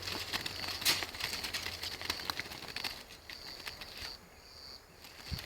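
Seized caged birds fluttering, wings flapping and beating in their cages in many short irregular taps, over a steady high chirring.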